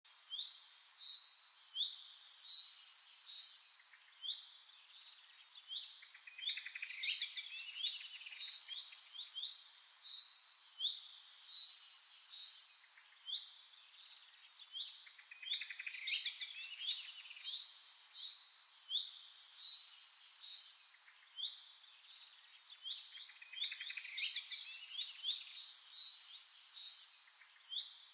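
Several songbirds chirping and singing together, a dense, continuous chorus of quick overlapping chirps and trills.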